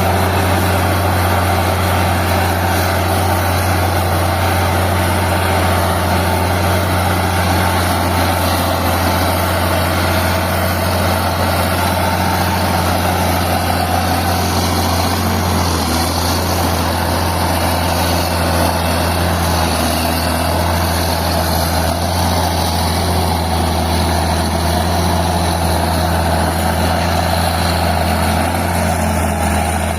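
Old Caterpillar D6 crawler dozer's diesel engine running steadily with a deep, heavy note, its speed settling a little lower about halfway through.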